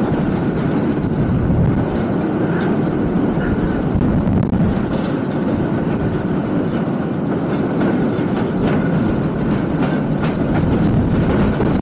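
Narrow-gauge steam train running along the track: a steady running noise of the wheels and cars on the rails, with no clear exhaust beat.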